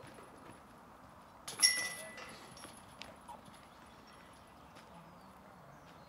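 A putted disc striking a disc golf basket's hanging chains: one sharp metallic clash about a second and a half in, ringing briefly as it dies away.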